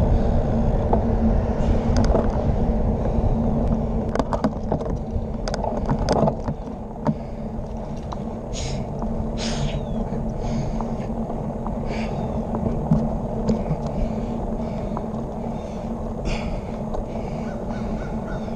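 Wind rushing over a handlebar-mounted camera's microphone together with the tyre and road rumble of a road bike on pavement, louder for the first six seconds and then easing off. Scattered clicks and rattles from the bike sound in the middle, and a few short hisses later.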